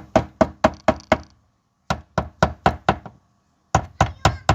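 Rapid sharp knocks, about four a second, in three runs of five or six with short pauses between: knocking on a 1992 Audi 80's fuel pump, a bid to free a stuck pump that stays dead, the sign of a failed pump.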